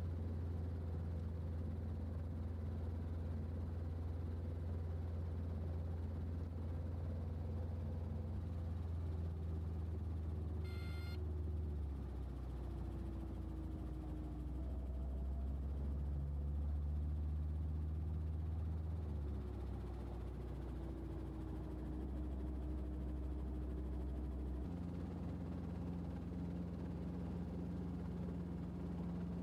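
Robinson R22 Beta helicopter heard from inside the cabin: a steady low drone from its four-cylinder piston engine and rotor, with the low hum shifting in pitch a few times. A brief high electronic tone sounds about eleven seconds in.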